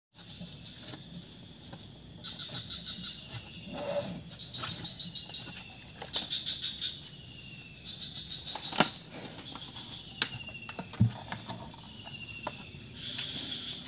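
Steady chorus of insects with a repeated pulsing call that ends in a short falling note. Now and then there are sharp knocks and clicks as cattle drink from a plastic bucket.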